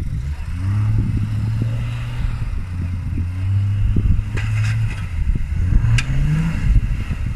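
Off-road 4x4's engine revving up and then holding a steady low note under load as it crawls over rocks, with the revs climbing again near the end. A few sharp clattering knocks come from the vehicle working over the rocks, the loudest about six seconds in.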